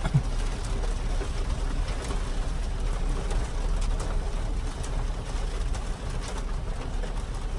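Steady storm noise from heavy rain and wind, with a low rumble underneath.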